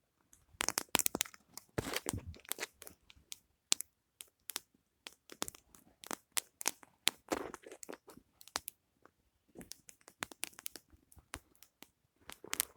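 Irregular crunching and crackling: many sharp clicks and short crunches, thickest about two seconds in and again around seven seconds.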